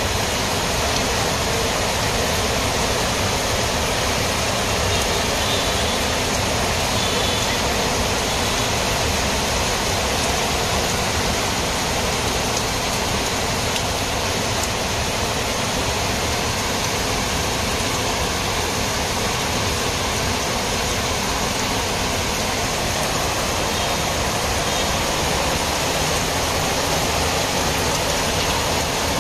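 Heavy rain falling steadily, a constant hiss with the patter of rain on corrugated metal roofs.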